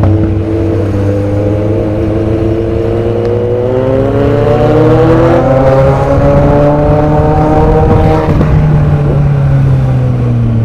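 Car engine under hard acceleration, its note climbing steadily in pitch for about eight seconds, then dropping suddenly and running on at a lower, steady pitch.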